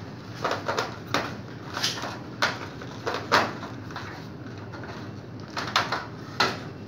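Plastic fire-alarm detector head being twisted and seated into its ceiling-mounted base: a series of short plastic clicks and scrapes, over a steady low hum.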